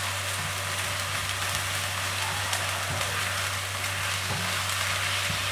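Chicken pieces coated in egg-white marinade sizzling steadily in hot oil in a nonstick pan over high heat while a silicone spatula stirs and turns them. There are a few soft knocks of the spatula against the pan, over a steady low hum.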